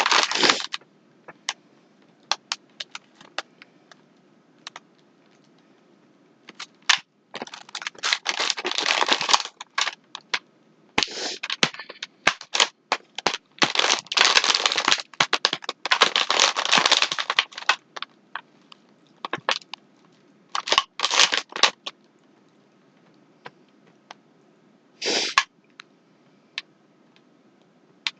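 Crunching and crackling of crisp, thin Sour Patch Kids Chips Ahoy cookies being bitten and chewed, in irregular bursts with scattered sharp clicks and quiet gaps between.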